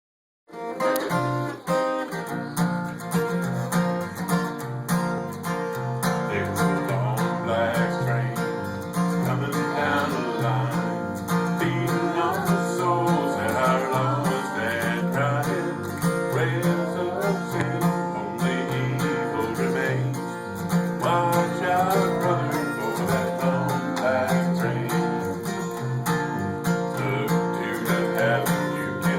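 Band playing a country-style instrumental intro: acoustic guitar over a steady electric bass line, starting about half a second in.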